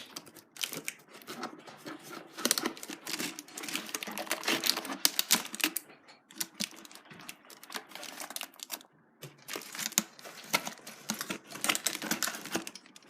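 Irregular clicks, taps and rustles of a toy's cardboard box and plastic packaging being handled and opened.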